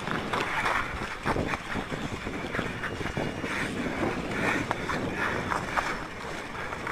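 Water sloshing and splashing around a car swamped in deep water, with scattered knocks and bumps.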